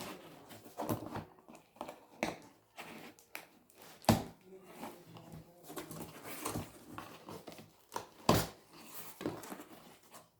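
Hands handling plastic packaging and parts: irregular rustling and crinkling with scattered clicks, and two sharper knocks about four and eight seconds in.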